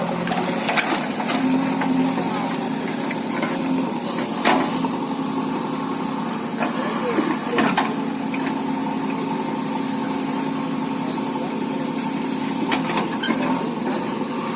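JCB earthmoving machine's engine running steadily, with a few sharp knocks.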